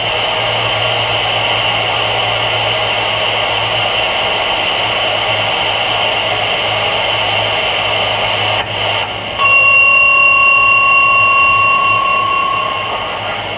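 CB radio receiver on AM channel 22 playing loud static hiss between transmissions. About nine and a half seconds in, a steady whistle of two pitches comes through the speaker and holds for about three and a half seconds before fading.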